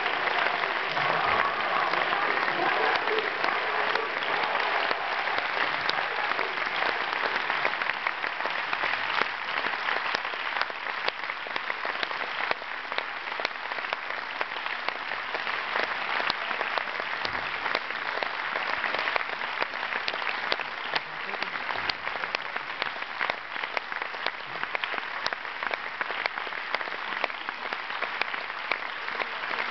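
A large audience applauding continuously in a long standing ovation, with hand claps close by standing out from the mass. The applause is slightly louder in the first few seconds and then holds steady.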